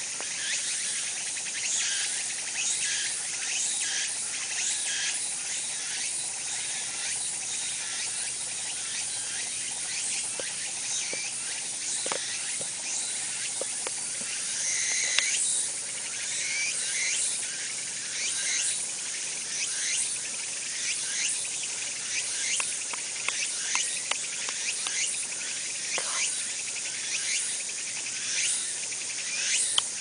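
Dense chorus of insects singing outdoors in summer: a steady, high, shrill buzz made of fast pulses, with a few short chirps about halfway through.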